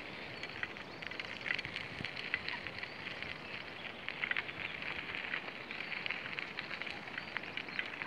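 A dense chatter of many small birds: short high chirps packed close together.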